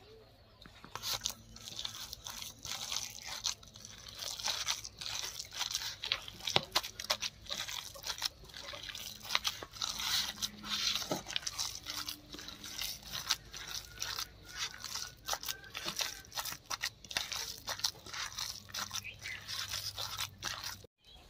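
A hand mixing boiled drumstick flowers into a stiff gram-flour batter in a steel bowl, with an irregular crackle of many small sounds as the fingers work the mix. It cuts out briefly near the end.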